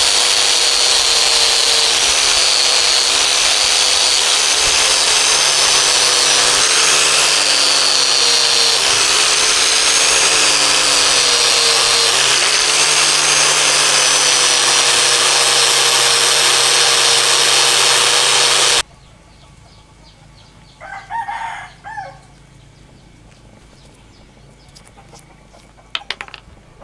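Small power tool with a buffing wheel whirring steadily against steel pliers, its pitch wavering slightly under the pressure of the work, then cutting off suddenly about two-thirds through. After it stops, a rooster crows once, and a few light clicks follow near the end.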